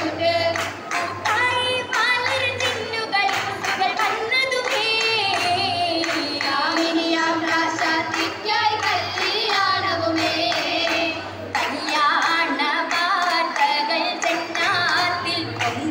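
Girls singing an Oppana song (a Mappila song) together, with rhythmic hand claps about three times a second keeping the beat.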